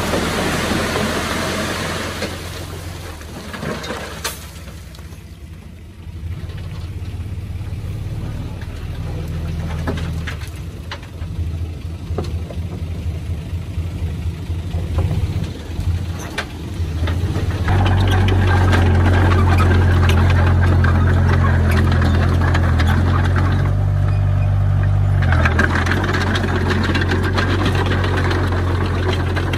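Diesel engine of heavy earthmoving machinery running, with a steady low hum that gets louder about two-thirds of the way in and stays up. Occasional short knocks are heard in the first half.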